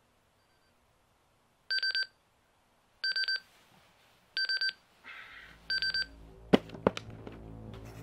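Nelsonic digital alarm clock beeping: four quick runs of high electronic beeps about a second and a half apart, then the alarm stops. Two sharp knocks follow near the end.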